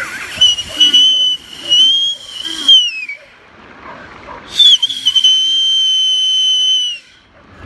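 A dog whining: two long, high whines. The first wavers and falls in pitch at its end; the second holds steady after a short rise.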